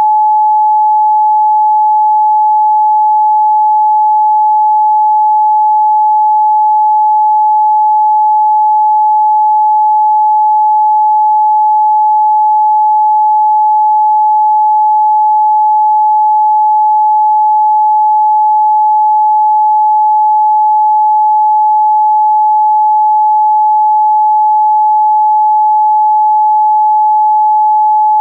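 A pure 855 Hz sine test tone, one steady unwavering pitch.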